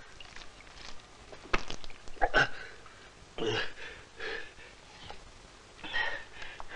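A man's short breathy gasps and sighs, several in a row, with a sharp click about a second and a half in.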